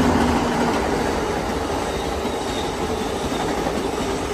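Amtrak Coast Starlight passenger train passing, a steady rumble of wheels on rail as its locomotives and then its double-deck Superliner cars roll by. The sound eases gradually.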